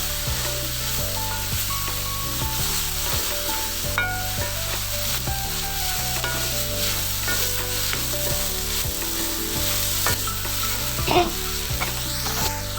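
Bitter gourd and raw mango mixture sizzling in hot coconut oil in a wok while being stirred, with occasional clicks and scrapes of the spoon against the pan; the sharpest knock comes about eleven seconds in.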